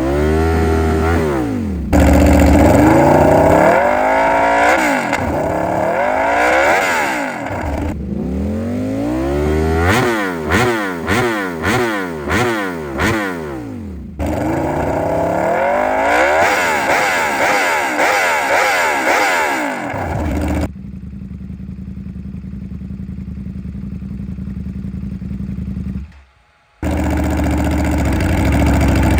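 V4 superbike with a de-catted race exhaust, heard in a string of short clips: the engine revs up and down, gives about six quick throttle blips in a row, accelerates with rising pitch, and then settles into a steady idle. It briefly drops out near the end.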